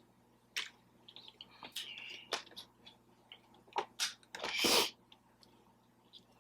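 Close-miked eating sounds while chewing birria tacos: scattered lip smacks and wet mouth clicks, with one louder, noisy half-second sound about four and a half seconds in.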